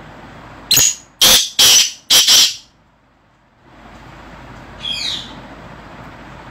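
Black francolin calling: four loud, harsh notes in quick succession, then about two seconds later a single fainter, shorter note.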